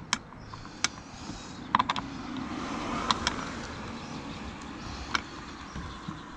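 A plastic door trim panel being shifted into line and a Torx screw worked into it by hand: a handful of scattered sharp clicks over a soft rubbing and scraping that swells in the middle.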